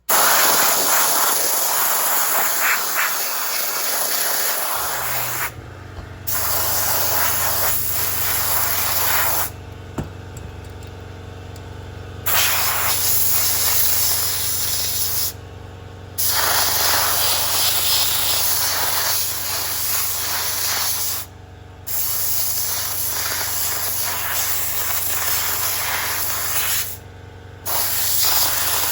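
Hissing of air or spray from a pressurised tool in long bursts of several seconds, stopping briefly five times. About five seconds in, a steady low machine hum starts and keeps running under the hiss and through its pauses.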